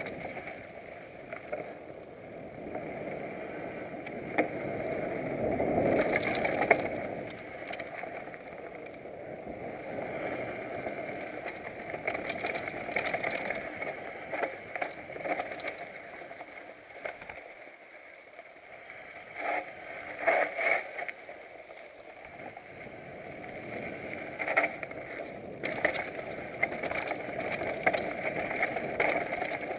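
Mountain bike descending a rocky dirt trail at speed, heard from the rider's own bike: a steady rush of tyres over dirt and stones with frequent sharp knocks and rattles as it hits rocks and roots. It swells about six seconds in and eases off for a few seconds past the middle.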